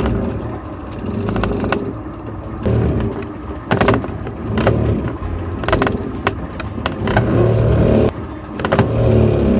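A sailboat's autopilot drive in the steering locker groaning back and forth as it works the steering, in repeated swelling groans. Sharp knocks and rattles from the boat's interior come in among them.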